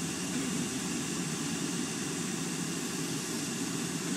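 Van engine idling, a steady low hum with no change in pace.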